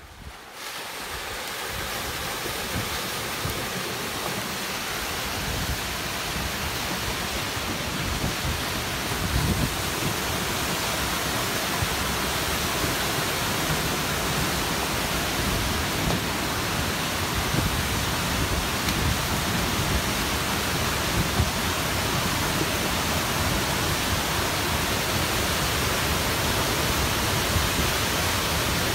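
Rushing of a flash flood's front, a surge of muddy water pushing logs and branches down a dry wash. It rises sharply within the first second and then holds steady.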